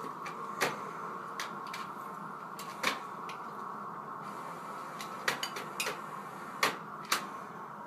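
A cat's paws and claws tapping and clicking on the plastic buttons of an electronic device: about a dozen light, irregular clicks, over a steady faint electrical hum.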